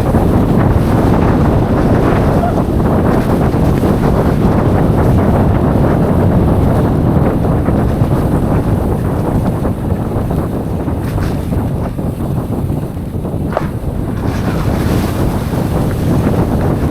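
Wind rushing over the microphone of a rider-mounted camera during a mountain-bike descent, mixed with the rumble of the tyres on a dirt trail and many short clicks and rattles from the bike.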